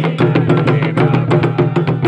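Candomblé ritual drumming: hand drums played in a fast, driving rhythm with sharp knocking percussion on top and voices singing over it.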